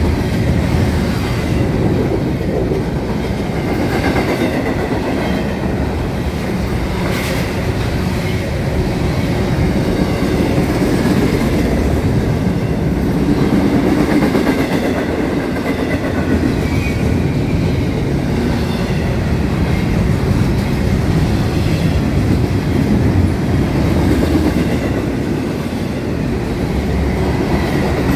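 Double-stack intermodal freight train rolling steadily past on its well cars. The wheels on the rails give a continuous rumble, with occasional clicks over the rail joints.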